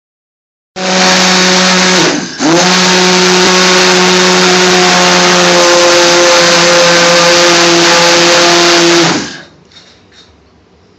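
A domestic blender starts abruptly just under a second in and runs steadily, puréeing cooked onion base gravy. Its motor note sags briefly and picks up again about two seconds in, then it cuts off near the end.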